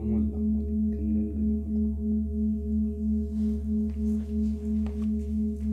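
Large brass singing bowl ringing on after being played, a steady low tone with a fainter higher overtone, wavering in loudness about three times a second.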